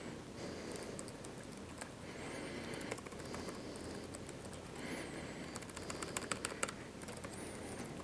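Faint laptop keyboard typing: scattered key clicks over low room hiss, more of them in the second half.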